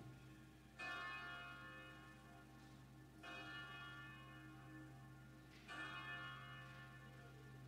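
A church bell tolling, struck three times about two and a half seconds apart, each stroke ringing on until the next. The bell is faint, over a steady low hum.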